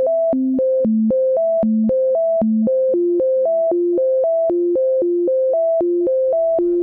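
Electronic synthesizer music: a repeating arpeggio of short, clean notes, about four a second, whose lower notes shift about halfway through. Near the end a low pulse and hiss come in under it.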